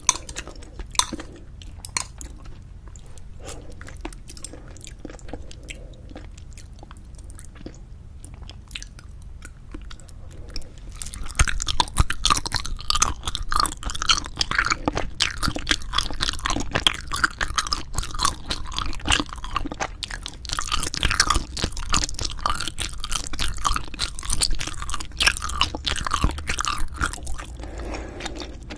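Close-miked chewing of braised spicy chicken with cheese: wet mouth clicks and smacks, sparse and quieter at first, then louder and dense from about eleven seconds in.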